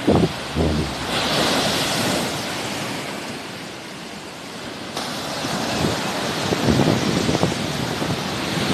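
Sea waves washing onto the shore: one wave surges in about a second in and ebbs away, and another comes in about five seconds in. Wind buffets the microphone now and then.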